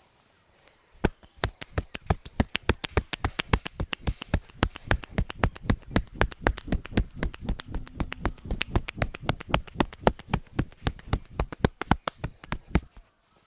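Percussive hand massage: a barber's hands striking the client in quick, even strokes, about six a second. The strikes start about a second in and stop shortly before the end.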